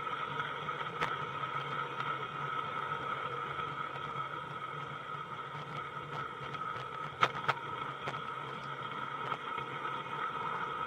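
A 16 mm-scale garden railway train running, heard from on board a tipper wagon: a steady whirring hum of wheels rolling on the track, with a few sharp clicks, two of them close together about seven seconds in.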